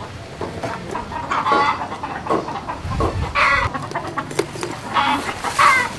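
Chickens clucking in a coop, with a few louder, longer calls about a second and a half in, midway and near the end.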